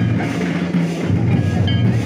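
Music with drums playing.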